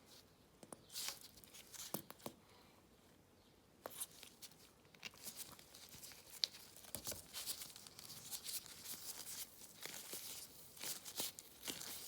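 Faint crinkling and crackling of disposable gloves and cornstarch slime being handled and worked. A few scattered clicks at first, turning into a denser rustle from about four seconds in.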